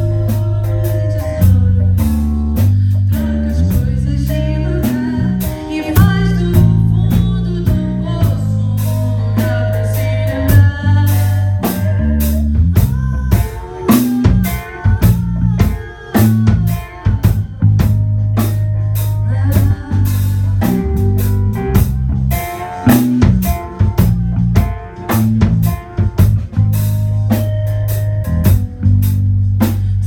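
Rock band playing an instrumental passage: electric guitars, electric bass and a drum kit, with a steady beat and a heavy sustained bass line.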